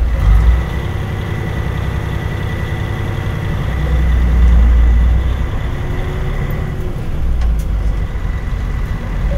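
Mitsubishi Fuso KL-MP37JK diesel city bus heard from inside as it drives: a low engine drone that swells louder about four seconds in as the engine pulls, with a thin steady high whine over it.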